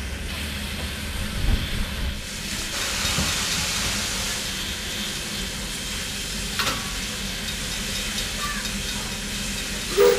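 Steam locomotive hissing steam steadily. A short low thump comes about a second and a half in, and a steam whistle sounds right at the end.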